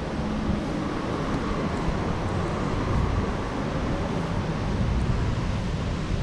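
Wind rumbling and buffeting on the microphone over a steady hiss of rain and distant street traffic.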